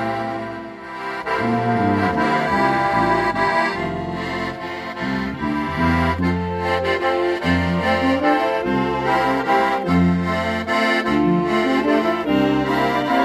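Small hymn ensemble of accordion, clarinet, alto and tenor saxophones, trombone and tuba playing a slow congregational hymn in parts, the tuba carrying a bass line of held notes under the accordion and reeds. The music dips briefly about a second in, then carries on.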